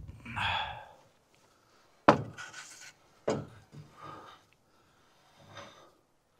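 A 2x4 wooden joist knocking as it is lifted and shifted into joist hangers overhead: a sharp knock about two seconds in, another just after three seconds, and a few softer scuffs. There is a heavy breath of effort near the start.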